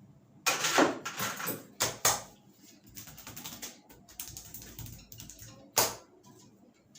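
Barber's hands working a client's head during a massage: a run of sharp slapping and rubbing noises. The strongest burst comes about half a second in, two short ones follow around two seconds, then softer rustling and one more sharp burst near the end.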